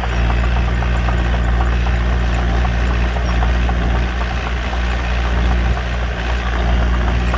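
Diesel engine of a small Komatsu D21P bulldozer running steadily, with a constant clatter of short knocks and clicks over the low hum.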